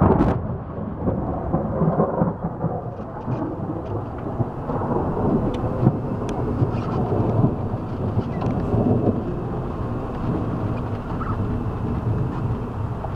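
Thunder from a close thunderstorm: a sharp crack at the very start, then a long rolling rumble that swells and fades.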